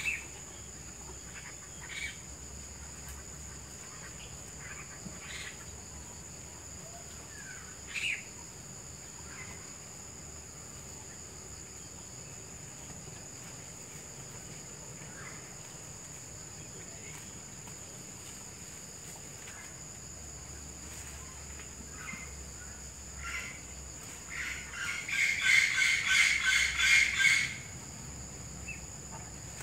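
Countryside wildlife: a steady high-pitched insect drone with scattered short bird chirps, and a loud, rapid pulsing call lasting about three seconds near the end.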